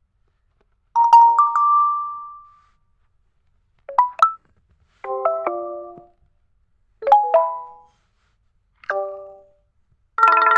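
Nokia 2.3 phone alert tones played one after another: a run of short electronic chimes of a few notes each, every one dying away within a second or two and followed by silence. A longer, fuller tone starts just before the end.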